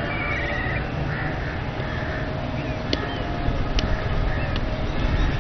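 Open-air ambience with a steady low rumble, birds calling in short chirps and a warbling call, and a few sharp knocks, two of them about three and almost four seconds in.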